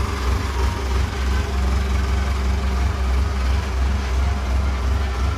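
Heavy construction-machine engine running steadily, a deep, even rumble.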